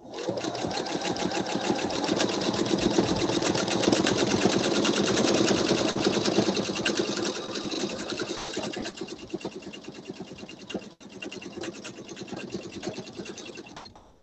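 Pfaff sewing machine stitching fast and steadily in free-motion quilting, a rapid run of needle strokes as the quilt is guided under the needle. It starts suddenly, grows quieter in the second half, breaks off briefly about eleven seconds in, and stops near the end.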